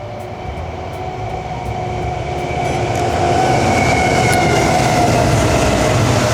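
A train going by on the tracks: a steady rumble that grows louder about halfway through, with faint steady tones running over it.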